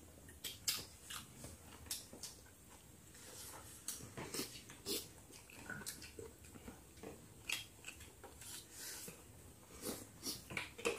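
Quiet eating sounds from several people eating rice and curry: chewing and lip smacking with small irregular clicks of spoons and fingers on plates.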